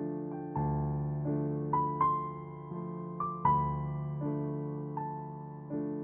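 Background music: a slow, gentle solo piano piece, single notes and chords struck about once a second and left to ring and fade.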